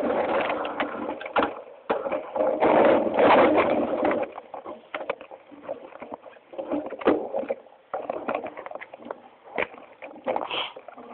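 Mountain bike descending a rocky, gravelly trail: wind rushing over the microphone and tyres on loose stones, with the bike rattling and clattering over rocks. About four seconds in the steady rush drops away, leaving irregular knocks and rattles.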